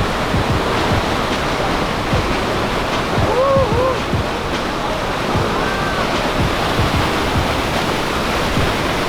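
The Rhine Falls, a large waterfall, roaring steadily up close. Two faint, short voice-like calls rise above it about three and a half seconds in and again near six seconds.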